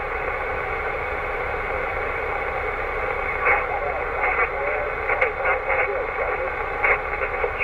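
Receiver audio from a 2 m VHF transceiver in USB mode being tuned up the band: steady, band-limited static hiss with faint garbled sideband voices drifting through, and a few short clicks in the second half.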